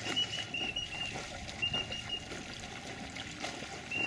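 A dog wading through shallow marsh water, the water sloshing and splashing around its legs. A few short high chirps come in clusters in the first two seconds and again near the end.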